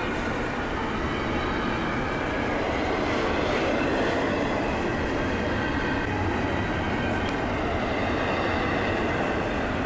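Double-stack container freight train rolling past close by, a steady, unbroken rumble of wheels on rail.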